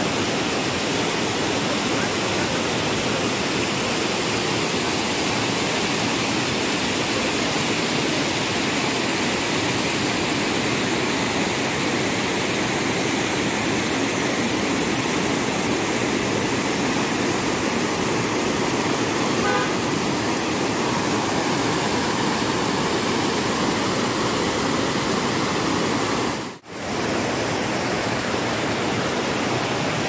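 River rapids rushing over rock ledges, a steady, even rush of white water that cuts out for a moment near the end.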